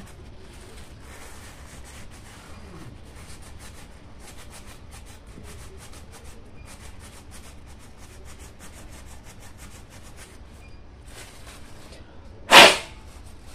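Light, repeated rubbing strokes as a laptop's small cooling fan is cleaned, with one short, loud burst of noise near the end.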